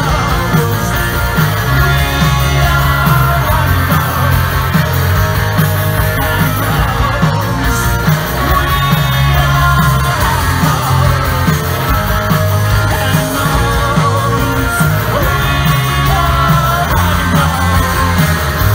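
A rock band playing live and loud: electric guitars, bass guitar and drums, with a singer's voice over them, heard from among the audience.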